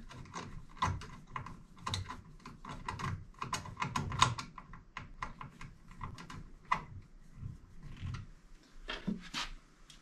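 Small screws being handled and screwed back in at the control box: irregular light clicks and taps of small metal parts.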